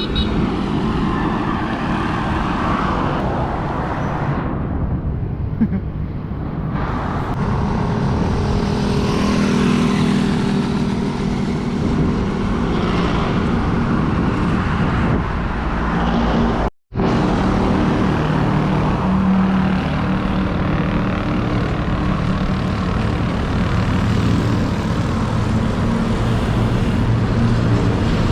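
Road noise while cycling in traffic: steady wind rush on the chest-mounted GoPro Hero 8 Black's microphone, mixed with the running of passing cars and motorbikes. The sound cuts out completely for a split second about 17 seconds in.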